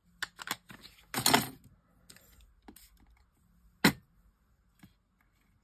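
Plastic craft ink pad cases being handled on a desk: light clicks and knocks, a short scrape about a second in, and one sharp plastic clack just before four seconds.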